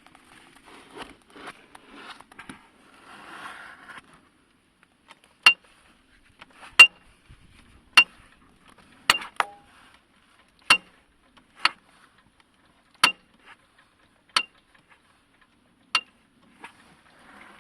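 A series of sharp knocks on a hard surface, about one every second and a half, each with a short bright ring. They follow a few seconds of faint rustling.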